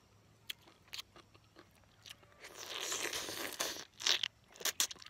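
A person biting into and chewing a soft, juicy fruit close to the microphone: scattered wet clicks early on, a longer spell of noisy mouth sounds around the middle, then a quick run of loud, sharp smacks near the end.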